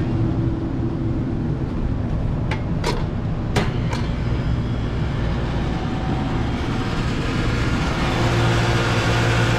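Steady low mechanical hum, with a few sharp clicks or knocks about two and a half to four seconds in.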